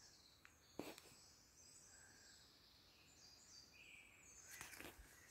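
Near silence with faint birdsong, one soft knock just under a second in, and a few light rustling steps near the end.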